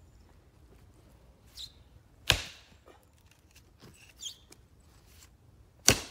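Two heavy axe blows into a round of black locust firewood, about three and a half seconds apart, the second lodging the axe in the wood.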